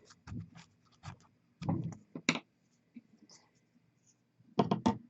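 Irregular small clicks and scratchy scrapes of a paper clip being worked down the clogged nozzle of a plastic paint dropper bottle. A quick run of sharper clicks comes near the end.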